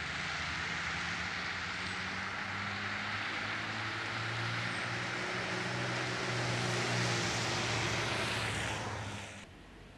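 A vehicle engine running steadily with a low hum under a rushing hiss, swelling slightly, then dropping away about nine seconds in.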